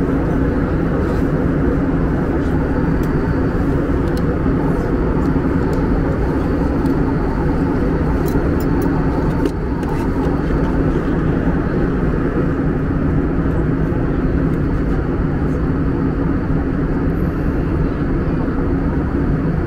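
Airbus A321 cabin noise at cruise: the steady, deep drone of the jet engines and airflow over the fuselage, heard inside the cabin at a window seat.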